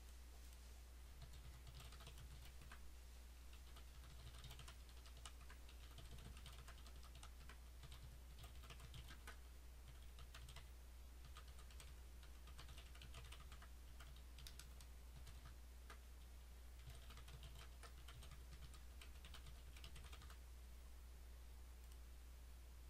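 Faint computer keyboard typing in short bursts with pauses between them, over a steady low hum.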